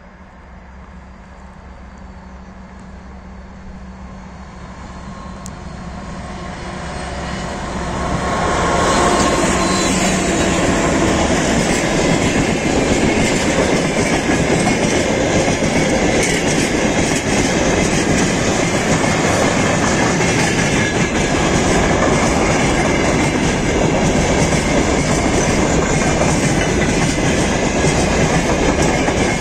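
Freight train hauled by a 2TE116 diesel locomotive approaching and passing close by: the sound grows steadily louder for the first eight seconds or so, then a long string of loaded tank cars and gondola wagons rolls past with continuous wheel clatter over the rail joints.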